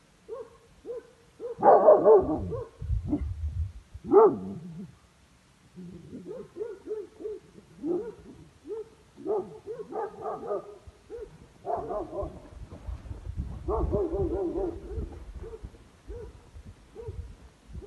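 Dogs barking and yelping in many short, irregular calls, with the loudest barks about two and four seconds in.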